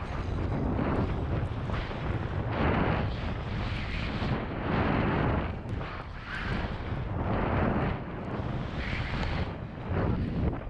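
Skis hissing through deep powder snow with wind rushing over the microphone, the noise swelling and fading about once a second with each turn.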